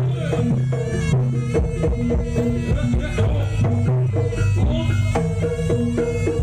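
Traditional Javanese jaranan music playing loudly and steadily: hand drums (kendang) beating a busy rhythm under a wavering, sustained melodic line.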